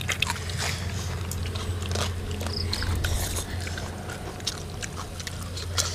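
Close-miked chewing and mouth sounds of people eating papaya salad with cockles by hand, with scattered small clicks, over a steady low hum.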